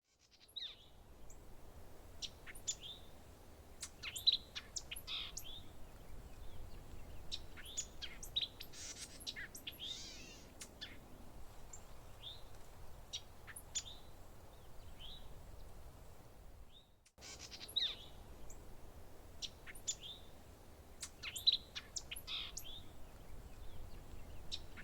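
Small songbirds chirping and calling in short, scattered notes over a faint steady low background noise, with a brief break about two-thirds of the way through.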